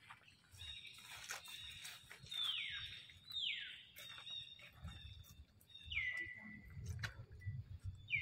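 Newborn macaque crying: about four thin, high-pitched squeals, each falling in pitch.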